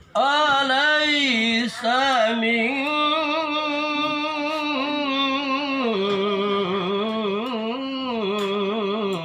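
A man reciting the Quran in the melodic tilawah style, holding long ornamented notes. The melody settles onto a lower pitch about six seconds in.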